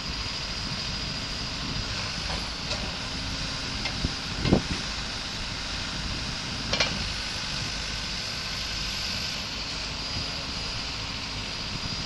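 Changlin 4x4 backhoe loader's Cummins diesel engine running steadily as it works its hydraulics, with a few sharp knocks; the loudest comes about four and a half seconds in.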